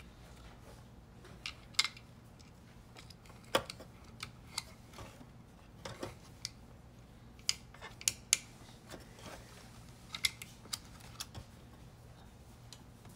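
Scattered small plastic clicks and taps, irregular and a second or two apart, as fingers seat the paper-end (PE) sensor and handle the plastic parts inside the open Epson 8550 printer.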